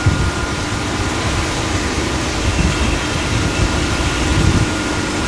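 Steady hum of greenhouse ventilation fans running, with a faint high whine and an uneven low rumble underneath.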